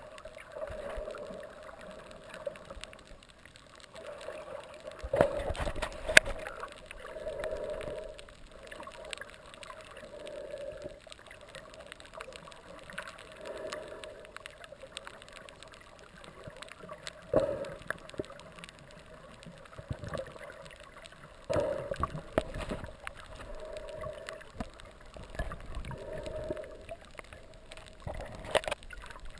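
Muffled underwater water noise, surging and gurgling in swells every second or two, with a few sharp knocks as a hand handles the camera.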